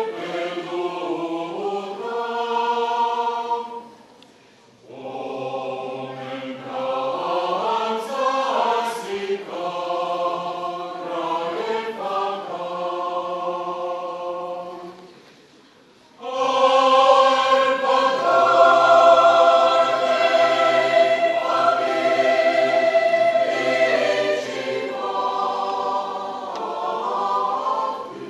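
Mixed choir of men's and women's voices singing in harmony. The singing breaks off briefly about four seconds in and again about fifteen seconds in, and after the second break it comes back in louder.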